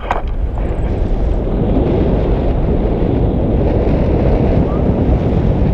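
Steady wind buffeting on the camera microphone from the airflow of a paraglider in flight, a loud low rushing noise.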